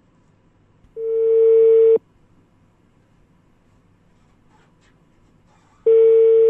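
Telephone ringback tone over the phone line while the called number rings: a steady beep of about one second, then a second one about five seconds later.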